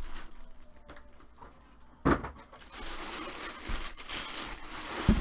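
Thin plastic bag crinkling and rustling as it is pulled off a football helmet, louder and continuous from about two seconds in. Two sharp thumps, one about two seconds in and a louder one near the end.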